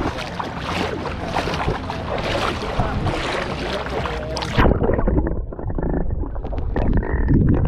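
Seawater splashing and sloshing around an action camera held at the surface. About four and a half seconds in the camera goes under, and the sound turns suddenly muffled: a low underwater rumble with bubbling and faint clicks.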